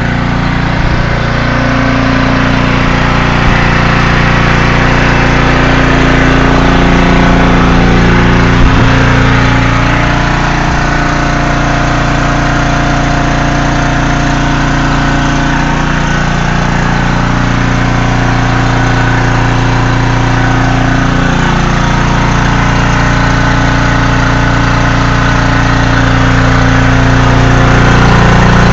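Briggs & Stratton portable generator engine running steadily at a constant governed speed, getting louder toward the end. A single knock about nine seconds in.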